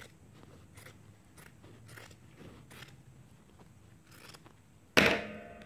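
Scissors snipping through fabric: a run of quiet, short snips about every half second. About five seconds in comes one loud sharp knock with a brief ringing tail.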